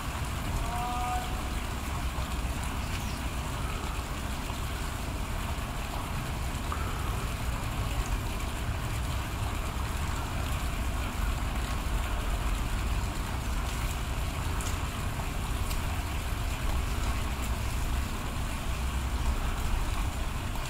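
Steady outdoor background noise: a low, fluctuating rumble of wind on the microphone under an even hiss.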